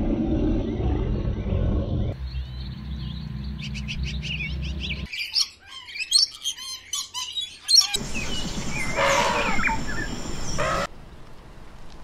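A low rumble for the first few seconds, then rapid, high chirping calls that come in abrupt stretches and stop suddenly near the end.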